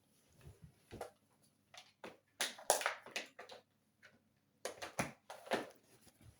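Irregular clicks, taps and knocks of a plug being pushed into a socket and wires and crocodile clips being handled, in clusters with short gaps between.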